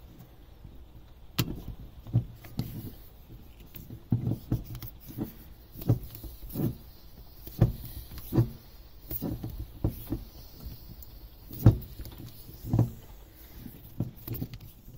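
Hand bike pump worked in repeated strokes, about one a second, each ending in a dull knock. Its ball-inflation needle is stuck in a wine cork without piercing it, so the pump is pushing against a blocked needle and no air reaches the bottle.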